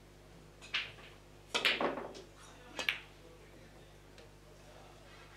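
A pool shot: the cue tip clicks on the cue ball, then the billiard balls clack hard together and off the cushions in a quick cluster about a second and a half in, with one more sharp clack near three seconds.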